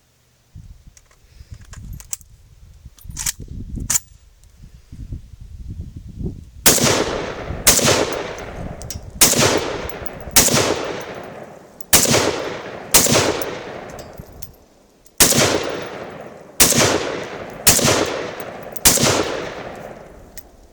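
Zastava ZPAP M85 AK pistol in 5.56/.223 firing about eleven single shots, roughly one a second, each with a fading echo. A few light handling clicks come first.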